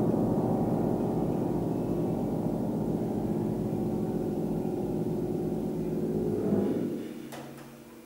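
Grand piano's final bell-like chord ringing on with the hands off the keys and slowly dying away. About seven seconds in the ringing is damped off sharply, leaving a few faint clicks.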